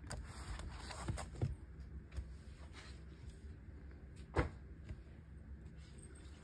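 Paperback coloring books being handled and moved on a wooden desk: soft handling sounds with a few light knocks, and one sharper knock about four seconds in.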